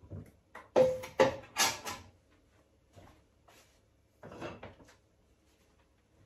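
Stainless steel preserving pan set down on an Aga range cooker's hotplate: a few loud metal clanks, one with a brief ring. A shorter, softer clatter follows about four seconds in.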